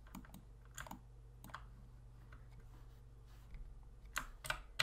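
Scattered clicks of a computer keyboard and mouse: a few single clicks early, then a quick cluster of three near the end, over a faint steady low hum.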